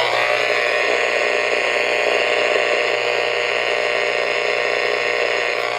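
Steady radio static hiss from a receiver on a weak, rough signal, the broadcast voice drowned out, with faint steady tones in the noise.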